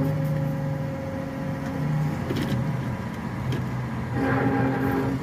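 Car interior noise as the car creeps forward at low speed: a low engine and road hum with steady tones that shift a few times, and a few light knocks.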